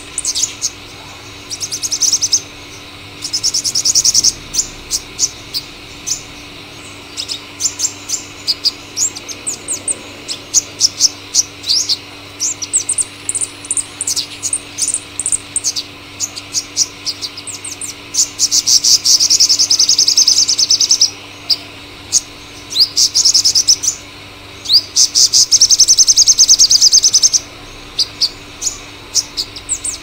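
Male purple sunbird singing: a fast run of high, thin chips and sweeping notes, broken by rapid buzzy trills. Two short trills come near the start, and two longer ones follow in the second half.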